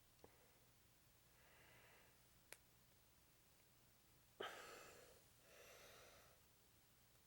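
Near silence with two faint clicks and a few soft breaths near the microphone. The loudest is a sharp exhale about four and a half seconds in, followed by another breath a second later.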